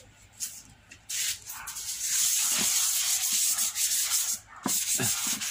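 Sandpaper rubbed by hand over the plastic seat of an old monoblock chair: a steady scratching hiss that starts about a second in, with a short break near the end. The sanding takes off the brittle outer skin of the plastic that muriatic acid has softened.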